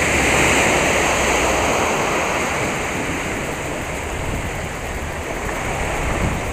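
Small waves breaking and washing up on a sandy beach, with wind buffeting the microphone.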